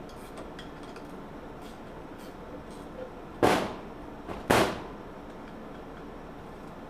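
Two hammer blows on metal about a second apart, each ringing briefly, with faint small tool clicks between.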